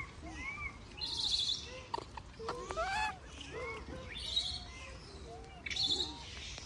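Newborn macaque giving short, arched coo calls over and over, some higher and some lower in pitch. Three bursts of high, rapid chirping come in, about a second in, mid-way and near the end.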